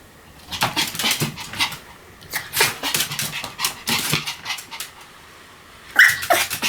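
Pomeranian barking in quick runs of short, sharp yaps. After a lull of about a second, a single louder, higher yelp comes near the end.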